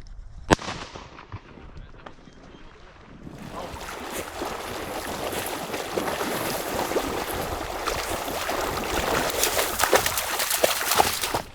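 A single shotgun shot about half a second in, with a short echo trailing off. From about three seconds in, a loud rushing, crackling noise builds and cuts off abruptly near the end.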